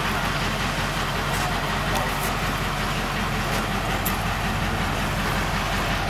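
Crane's diesel engine running steadily with a low, even throb while the crane holds and swings a heavy precast concrete bridge section.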